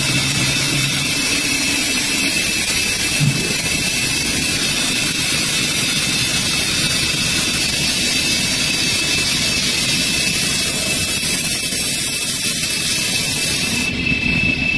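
Multi-spindle CNC wood turning lathe running, several wooden columns spinning against the cutters: a steady, loud mechanical whirring and hiss with a thin high tone held through it.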